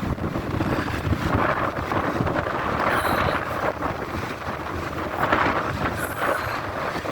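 Wind buffeting the phone's microphone, a steady low rumbling roar with gusts, over the rush of the wind across the beach.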